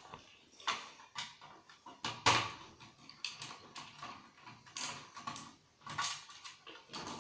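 Irregular clicks, taps and knocks of tools and parts being handled as a set-top TV recorder's casing and screws are worked apart, with the loudest knock about two seconds in.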